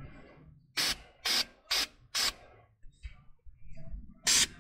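Aerosol spray paint can giving short hissing bursts, four in quick succession about a second in and another near the end, to paint bare, freshly ground metal on the front suspension.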